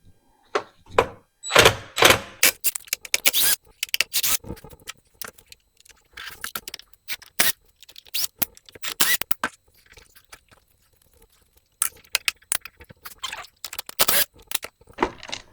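Plastic covers and housing parts of a string trimmer being worked loose and taken off: a run of irregular clicks, scrapes and clatters, with a short pause about two-thirds of the way through.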